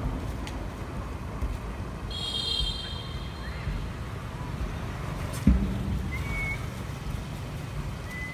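Steady low outdoor rumble, with a brief high-pitched squeal about two seconds in, a single thump about halfway through, and a couple of short rising chirps later on.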